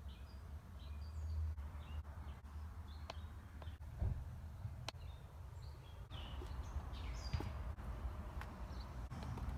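Small birds chirping now and then, short scattered calls, over a steady low rumble on the microphone.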